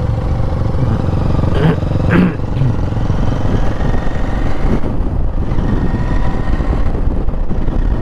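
Royal Enfield Interceptor 650's parallel-twin engine running steadily as the motorcycle is ridden down the road, heard from the rider's seat.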